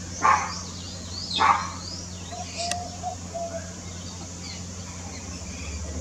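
A dog barking twice, about a second apart, over faint high bird chirps and a low steady hum.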